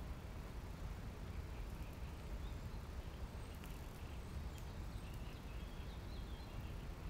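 Steady low rumble with faint, scattered bird chirps now and then.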